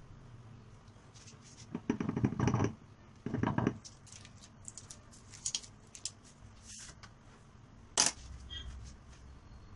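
A cake board scraping against the counter as the cake is turned around, in two rough bursts about two and three and a half seconds in. A sharp click comes near the end.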